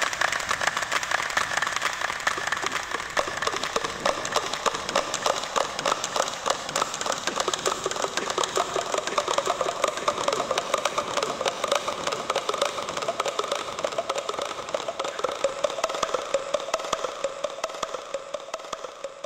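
Two people clapping their hands in a fast, steady run of sharp claps that grows fainter near the end. The claps are aimed at the stepped face of the pyramid to draw out its echo, the 'call' to Quetzalcoatl.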